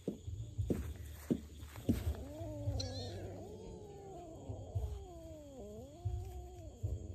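Kittens meowing: four short rising mews in the first two seconds, then long, drawn-out meows that rise and fall in pitch and overlap one another for about five seconds.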